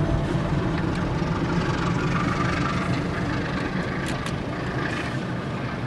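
Freight train rolling past a level crossing, heard from inside a car: steady running noise of the locomotives and then the tank wagons going by, with a couple of faint clicks about four seconds in.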